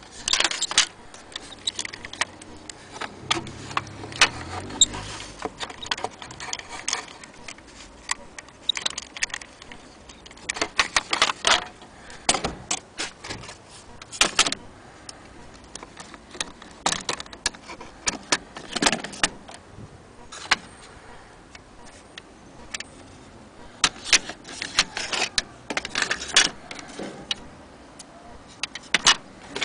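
Wooden-framed glass magic lantern slides being handled and shifted against one another: irregular clicks, taps and clatter of wood and glass, coming in clusters.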